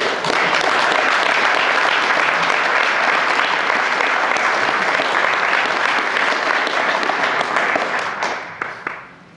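Audience applauding steadily, a dense clatter of many hands clapping that dies away about eight seconds in.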